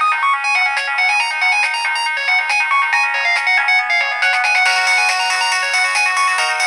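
Nokia 1208b ringtone playing: a quick electronic melody of short notes, several sounding at once, which grows brighter about four and a half seconds in.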